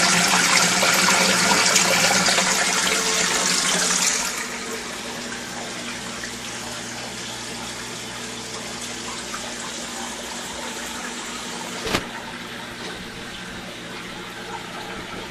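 Water rushing and splashing into an aquarium tank, loud for about the first four seconds, then dropping to a softer steady flow over a faint low hum. One sharp click late on.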